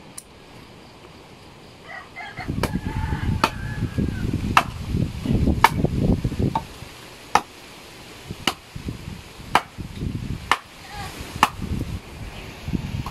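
Wind gusts buffeting the microphone, setting in a couple of seconds in, with a series of sharp chopping clicks about once a second. A chicken calls faintly near the start.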